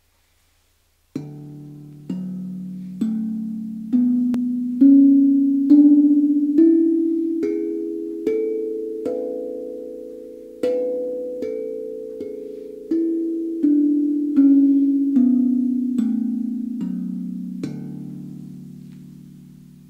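Kool Drum La Sirena 10 steel tongue drum struck with a mallet, one note at a time, about a note a second: its ten tuned tongues are played up the scale (D, F#, A, B, C#, D, E, G#, A, B) and then back down, each note ringing on, the last low note left to ring out and fade.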